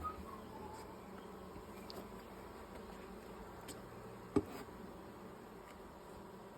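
Honeybees buzzing around an open hive: a faint, steady hum. A single sharp knock comes about four and a half seconds in.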